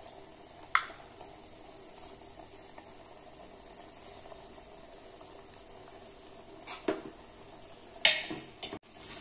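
Melted ghee poured into a pot of simmering sweet pongal, with a faint steady bubbling hiss. A single clink comes about a second in, then a steel ladle knocks and scrapes against the metal pot a few times near the end as the pongal is stirred.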